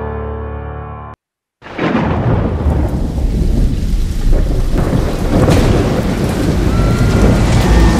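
A short piano logo jingle ends about a second in. After a brief silence, a thunderstorm starts abruptly: steady rain with low rolling thunder.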